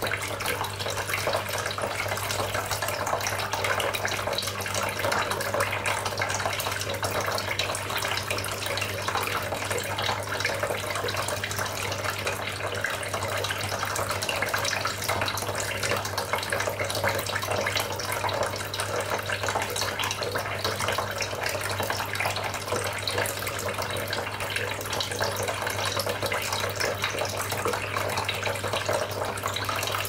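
Homemade tabletop water fountain running: thin streams pour from its spouts and splash steadily into the basin below. A steady low hum sits underneath.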